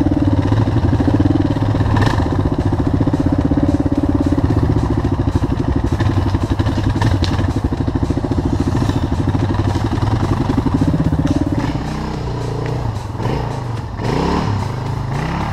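Single-cylinder Suzuki DR dual-sport motorcycle engine running steadily at low speed, heard from the rider's own bike. About three-quarters of the way through it eases off, then revs up and down in a few quick rises and falls.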